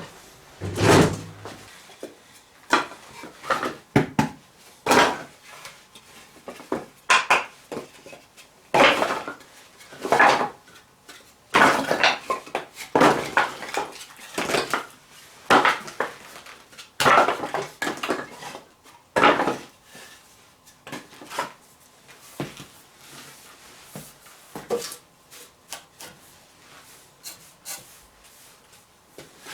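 Sawdust being swept up with a brush or broom: a run of short, scratchy sweeping strokes at an uneven pace, thinning out in the last few seconds.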